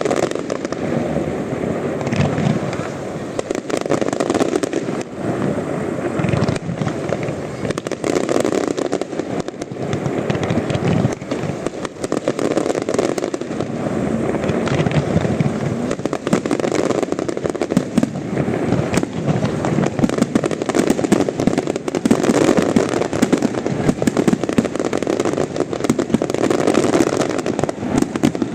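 Fireworks display going off: a dense, continuous run of bangs and crackling bursts that overlap without a break.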